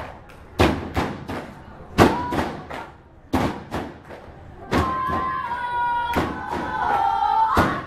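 Spectators chanting in long drawn-out calls, with loud thuds every second or so.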